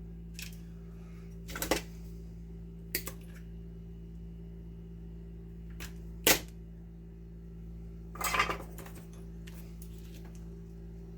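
Sharp clicks and clatters of small tools and parts being handled while wiring. The loudest click comes about six seconds in, and a short rattling run of clicks follows a couple of seconds later, all over a steady low hum.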